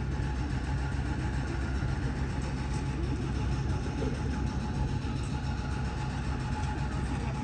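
Steady low machine drone with a faint steady whine above it.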